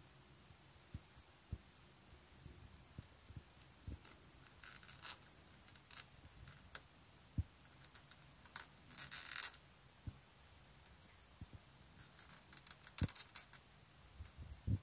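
Irregular gnawing-like scratching and clicking from inside a wall and aluminium window sash frame, in scattered clicks with a few short scratchy spells; an unidentified small creature, which the owner guesses is an insect or a mouse.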